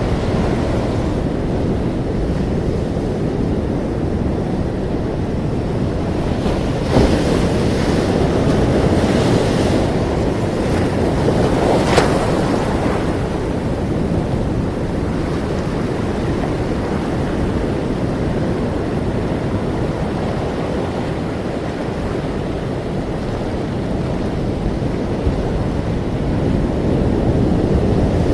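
Ocean surf: a continuous rushing wash of waves, with a couple of sharper surges, about seven and twelve seconds in.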